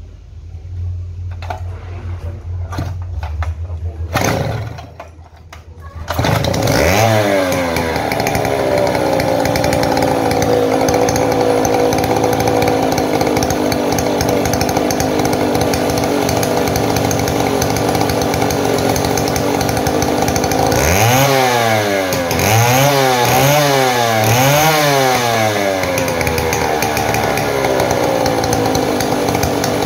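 Stihl 070 two-stroke chainsaw starting about six seconds in, revving up once and then running steadily, revved four times in a row near the end. This is a test run after a repair for loss of power and backfiring.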